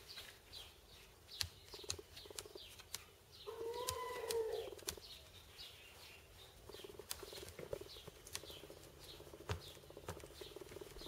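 Birds calling: short high chirps repeated about twice a second, with one longer call about four seconds in that rises and then falls, and a few sharp clicks.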